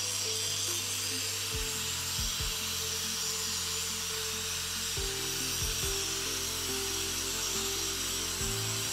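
DeWalt angle grinder with a grinding disc working against steel, a steady grinding hiss, with background music under it.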